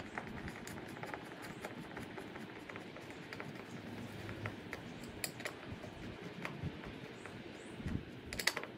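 Hand screwdriver driving a screw into a sliding patio door frame: light, irregular metal clicks and scrapes, with a short run of louder clicks near the end.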